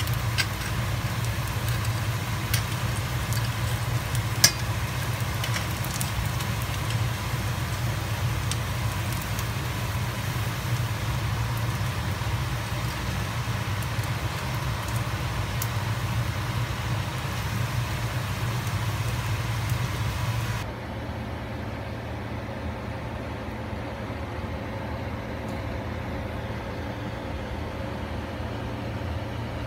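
Hot oil sizzling in a wok with samosas frying in it, with scattered crackles and pops of spitting oil over a steady low hum. About two-thirds of the way in the sizzle cuts off abruptly, leaving only a quieter steady hum.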